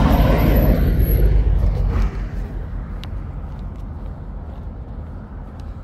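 Road vehicle rumble, loud for about the first two seconds and then dropping to a quieter steady low rumble, with a few faint clicks.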